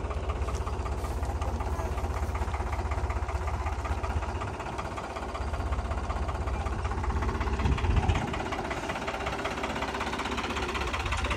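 Diesel tractor engine idling with a steady, even clatter, briefly louder about eight seconds in.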